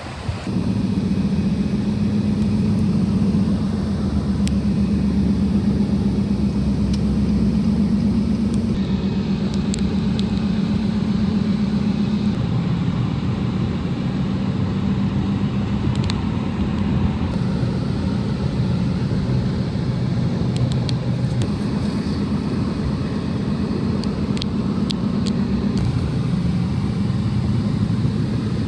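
Boat engine running at a steady speed, a low drone that shifts slightly in pitch a couple of times, with a few faint clicks above it.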